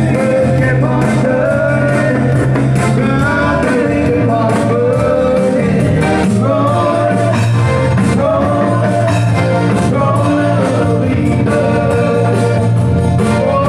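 Live band playing a song: a male singer and a female singer sing over an electronic keyboard and drums, with a steady beat.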